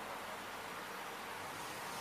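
Steady, even hiss of background noise or room tone, with no distinct sound events.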